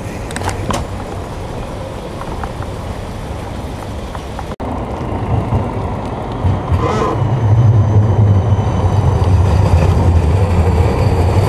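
Street traffic and wind rumble picked up while riding a bicycle on a city road. There are a few sharp clicks near the start and a brief drop-out just before five seconds, and a low rumble grows much louder from about seven seconds in.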